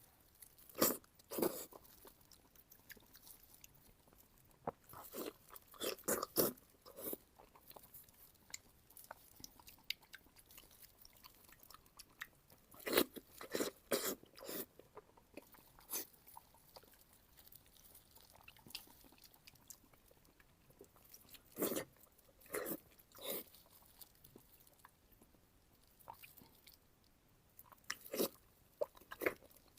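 Close-miked eating of pork intestinal fat (jiguan you): bites and chewing mouth sounds come in short clusters every few seconds, with quiet stretches between them.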